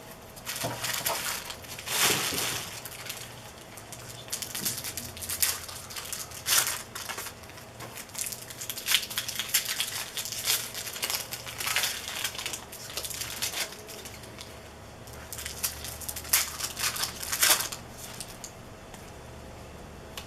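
Trading card packs being handled and opened: foil wrappers crinkling and crackling in irregular rustles, with the light slaps and slides of cards being shuffled.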